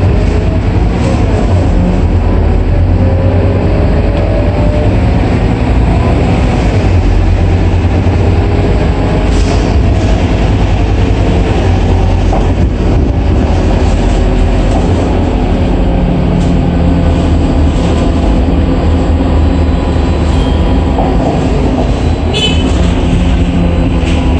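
Scania K230UB city bus heard from inside the cabin while under way: a loud, steady low drone from its rear-mounted engine and drivetrain, with a whine that rises in pitch as it accelerates in the first few seconds. A few sharp clicks and rattles from the cabin come through, one about nine seconds in and another near the end.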